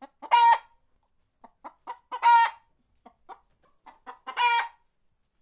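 Hen clucking, with three loud drawn-out squawks about two seconds apart and short clucks in between, in a clean recording with no background noise.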